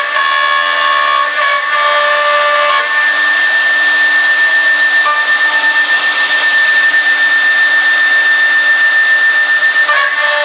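CNC router spindle running and cutting a panel: a steady high whine over a continuous rush of cutting noise, with a light even pulsing in the loudness through the middle.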